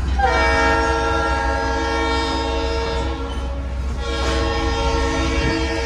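Train horn sounding two long blasts: the first, a chord of steady tones, about three and a half seconds long, then a brief gap and a second blast held past the end, over the steady low rumble of the moving train.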